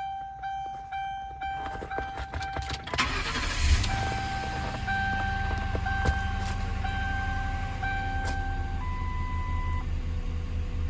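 Car warning chime repeating about twice a second, then the 2009 Mercury Grand Marquis's engine is cranked and starts about three seconds in and settles into a steady idle, with further chime tones sounding over it.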